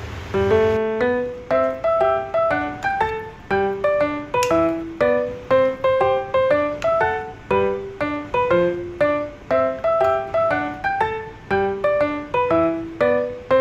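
Background music: a light piano tune of short, evenly paced notes.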